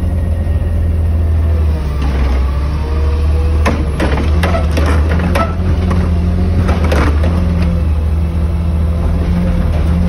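Refuse truck with a Curotto-Can automated cart arm: the diesel engine runs loudly and steadily, with a whine that rises and falls as the hydraulic arm works. A run of sharp metal clanks and bangs comes between about four and seven seconds in as the arm grabs and lifts a recycling cart.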